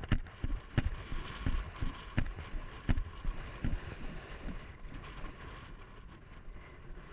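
Helmet camera on a cantering horse: rhythmic thumps about one and a half a second as each stride jolts the loose camera on its smooth helmet, over wind rushing across the microphone. The thumps die away after about four seconds while the wind noise goes on.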